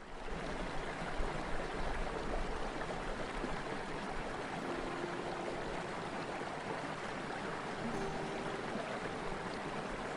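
River rapids in spate after a storm: a steady rush of churning white water over rocks, fading in at the start.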